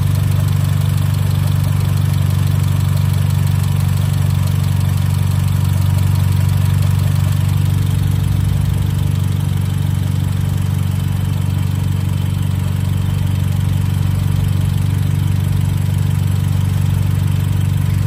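Volkswagen Golf R (Mk7) turbocharged 2.0-litre four-cylinder, rebuilt with forged internals, idling with a steady, even low hum.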